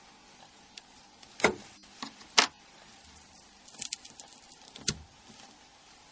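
Small parts and tools being handled on a bench as the Nokia N91's HDD assembly is lifted off: scattered sharp clicks and taps, two louder knocks about one and a half and two and a half seconds in, a quick cluster of light clicks near the middle, and another knock near the end.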